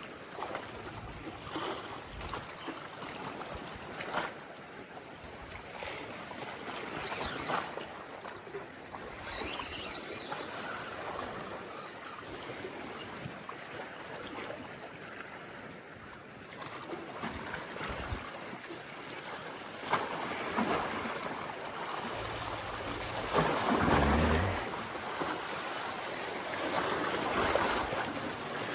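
Seawater washing and sloshing among concrete tetrapod breakwater blocks, mixed with wind. The wash rises and falls unevenly, with a louder surge and low rumble about three quarters of the way through.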